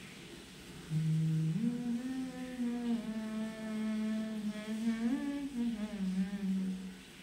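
A woman humming a slow melody with her mouth closed, in long held notes joined by gentle slides in pitch. It begins about a second in.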